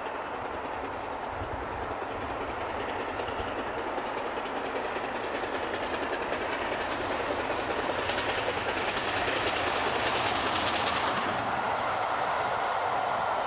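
An LNER A3 Pacific steam locomotive hauling a train of Pullman coaches, its running noise growing steadily louder as it approaches. A brighter rush of sound comes in from about eight to eleven seconds in, and the coaches' rumble passes close near the end.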